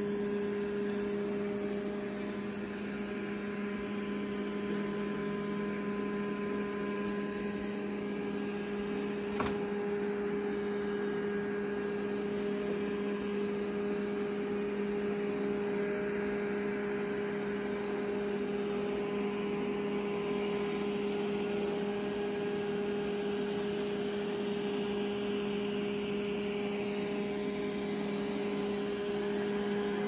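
Roborock S5 robot vacuum running on carpet: a steady motor hum from its suction fan and brushes, with one sharp click about nine and a half seconds in.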